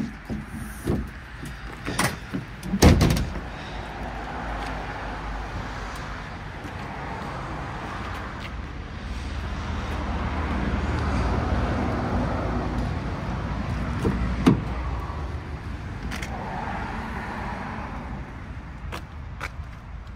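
Clicks and clunks from a pickup truck's rear canopy door and tailgate being opened, with a loud thump about three seconds in and another knock later on. Between them, a steady low rumble with a hiss.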